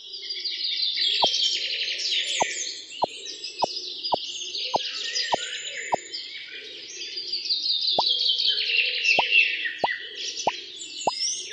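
Birds chirping densely and steadily, like a recorded birdsong ambience, with a cartoon 'bloop' pop effect repeated about every half second: a short, sharp falling tone. The pops pause for about two seconds midway. They go with toy fruits being set down one by one.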